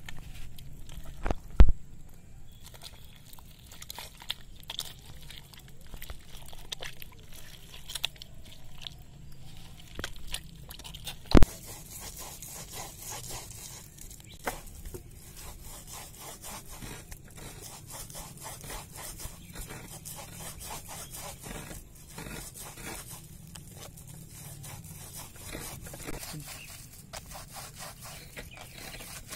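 Wet, fibrous palmyra palm fruit being squeezed by hand and rubbed against a plastic colander's mesh to force the pulp through: continuous scraping and rubbing with small ticks, and two sharp knocks, one about a second and a half in and one about eleven seconds in.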